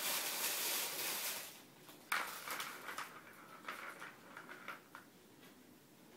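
A ball rolling around a plastic cat track toy as a kitten bats it: a steady rolling rush for about a second and a half, then a sudden knock about two seconds in and shorter rattling runs that die away.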